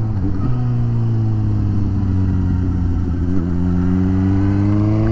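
Suzuki GSX-S750's inline-four engine running under way. Its pitch sags gently at first, then rises steadily over the last couple of seconds as the bike accelerates.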